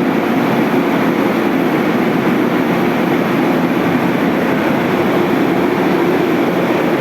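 Half-horsepower vacuum pump running steadily with an even, continuous drone.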